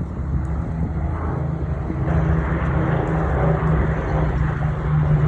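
Piston-engined propeller aircraft droning steadily, growing louder as it approaches.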